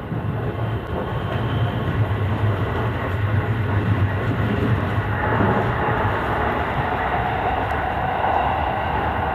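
JR Gakkentoshi Line (Katamachi Line) commuter train running, heard from inside the car: a continuous rumble of wheels and traction motors that grows a little louder about halfway through.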